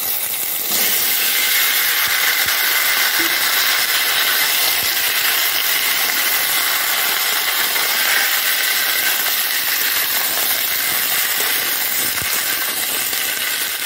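Cubed pumpkin sizzling in hot mustard oil in a karahi: a loud, steady hiss that jumps up about a second in as the pieces land in the oil, then holds.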